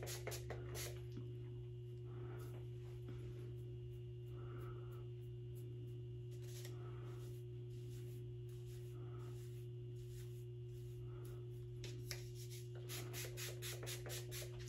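Hairspray sprayed into a synthetic wig in short hisses: two at the start and a quick run of several near the end, with soft rustling of hair being fluffed with the fingers in between.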